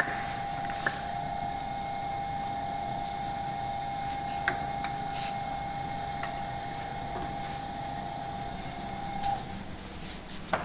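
A steady machine whine from the lathe rig, which stops about nine seconds in, with a few sharp metal clicks as the lathe chuck is handled.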